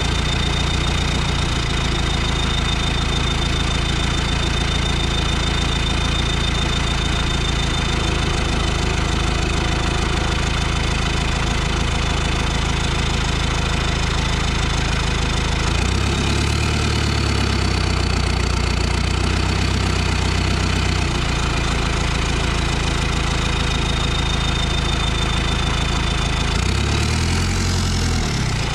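Cummins 4BT 3.9-litre four-cylinder turbo diesel running under way, with a thin high turbo whistle over the engine note. The engine note changes and the whistle climbs in pitch about halfway through, then again near the end.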